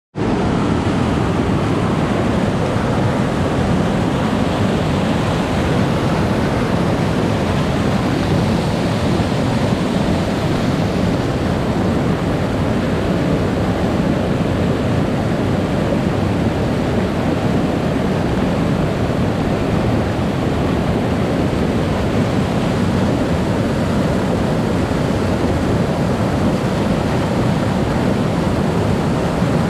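A mountain stream in spate after heavy rain, its muddy floodwater rushing and churning over boulders in a loud, steady, unbroken rush.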